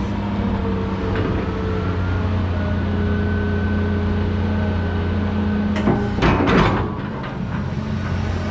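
Cat 330 hydraulic excavator running steadily under work, with a low engine drone and a faint whine that comes and goes. About six seconds in, a loud burst of knocks and scraping lasts about a second.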